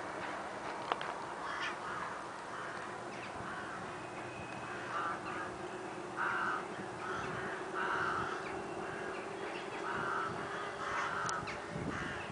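Crows cawing: a run of short calls repeated about once a second, over a faint steady hum.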